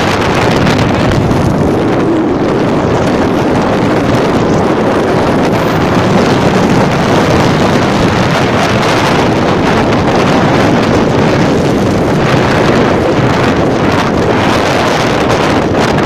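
Strong sandstorm wind rushing and buffeting the microphone on a moving motorcycle, a loud, steady, unbroken rush.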